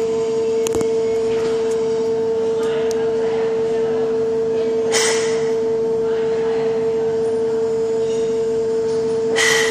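Concrete flexural testing machine running with a steady, even-pitched hum while it loads a concrete beam. A sharp click comes under a second in, and short harsh noises come about five seconds in and again near the end.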